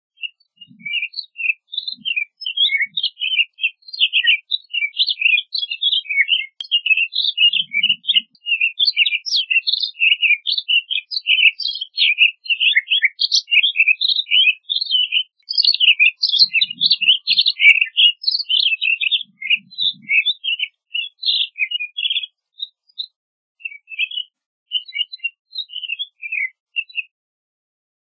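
Pine grosbeak singing: a fast, continuous warble of short high notes that thins out to scattered notes near the end.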